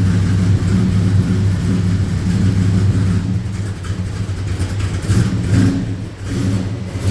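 Small-block Chevy V8 running cold and rich at a rough, uneven idle with a very bad misfire, which the mechanic takes for the engine firing on only five or six of its cylinders. The note wavers and stumbles, dipping briefly about six seconds in.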